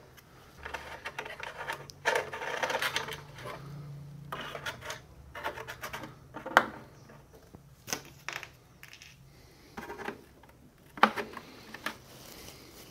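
Scattered light clicks, scrapes and rubbing from hands working a small hatch loose on the underside of a radio-control model plane's fuselage, with a stretch of rubbing early and one sharper click about six and a half seconds in.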